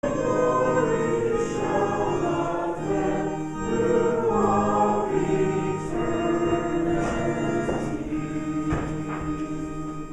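A group of voices singing a hymn together, over sustained chords that change every second or so. The singing grows quieter near the end.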